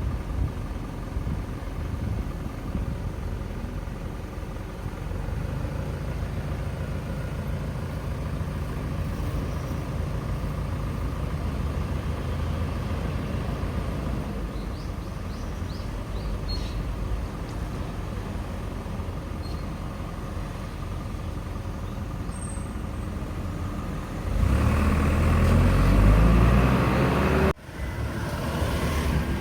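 Road traffic at a street crossroads: vehicle engines and tyres keep up a steady rumble. A heavy vehicle passes close, louder, about five seconds before the end. Then the sound cuts out for an instant.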